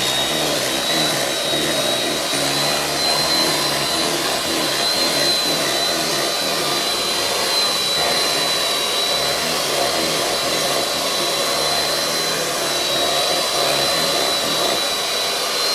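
Stand mixer running steadily, its whisk whipping a thick milk-and-dark chocolate ganache in a stainless steel bowl, with a steady high-pitched motor whine over the whir.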